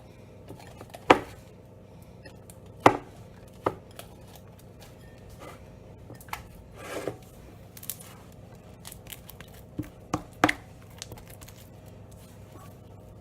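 A utensil knocking and scraping against a mixing bowl as thick, sticky slime is stirred, giving sharp, irregular knocks every second or two.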